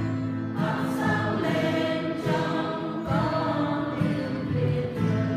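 Church choir singing a Vietnamese hymn with musical accompaniment.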